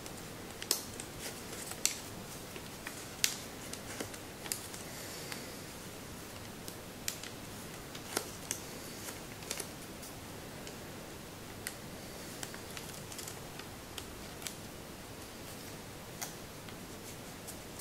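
Sheet of Kami origami paper being folded and pinched by hand: irregular sharp crinkles and clicks of the paper over a steady hiss.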